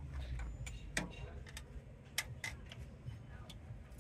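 Irregular light metallic clicks and clinks of hand work on engine parts in a minibus diesel engine bay, over a low steady rumble.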